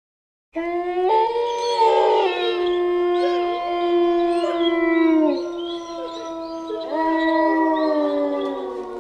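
Wolves howling together, several long overlapping howls that hold and glide in pitch, starting suddenly about half a second in.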